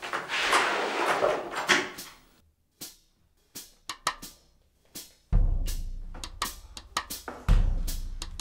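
A drum-kit beat in the soundtrack: a few sparse clicks, then about five seconds in a heavy kick drum comes in with snare and cymbal hits, the kicks about two seconds apart. A rustling noise fills the first two seconds.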